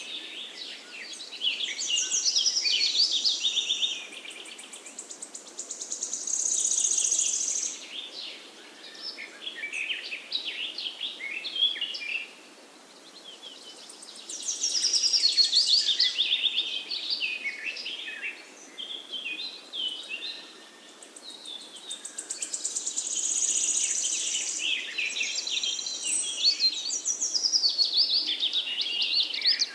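Songbirds singing: long, rapid, varied phrases of a few seconds each, high-pitched, with short pauses between them.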